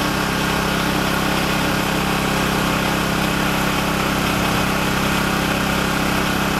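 An engine idling steadily, giving an even, unchanging hum.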